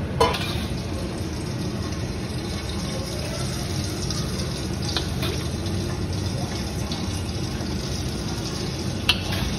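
A ladle scooping hot rendered pork lard out of a wok and pouring it into a steel pot, with the metal ladle clinking sharply against the wok or pot a few times. A steady rushing noise runs underneath.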